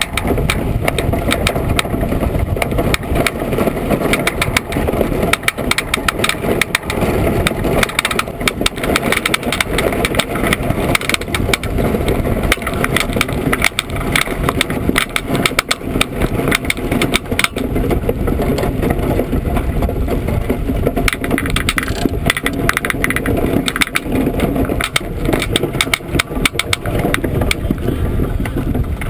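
Iceboat runners rumbling and rattling over lake ice while under sail, picked up through the boat-mounted camera, with a steady rush and many small clicks and knocks throughout.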